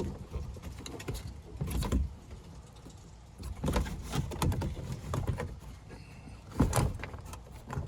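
Plastic interior trim panel being pried and worked loose by hand, with scattered knocks and scrapes as a stubborn retaining clip is forced.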